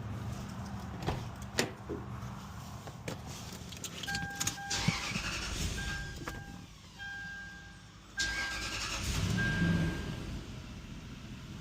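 Lexus GX 470's electronic warning chime beeping about five times over some five seconds, with clicks and handling noise around it.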